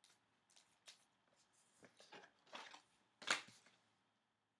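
A trading card being slid into plastic card sleeves: a thin penny sleeve crinkling and rustling, then the sleeved card scraping into a rigid top loader. It comes as a string of short rustles and scrapes, the loudest a little past three seconds in.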